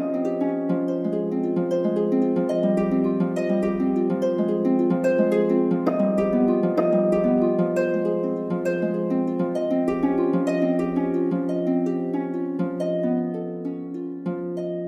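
Relaxing background music: a harp playing a continuous flow of plucked notes over a sustained low drone, growing softer near the end.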